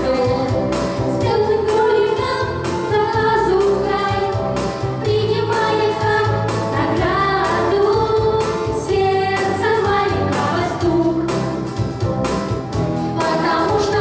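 A vocal group singing a song together over a backing track with a steady beat and bass.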